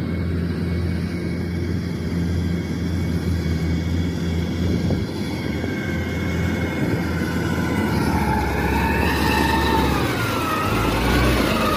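Engine of a laden rice carrier running steadily as it drives across a harvested paddy. In the last few seconds a whining tone rises and falls over the engine note and the sound grows a little louder as the machine comes close.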